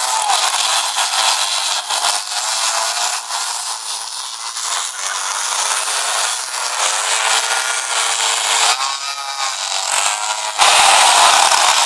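A pack of small two-stroke pocketbike engines buzzing at high revs, their pitch rising and falling as the riders accelerate and slow. Near the end it gets suddenly louder as bikes pass close.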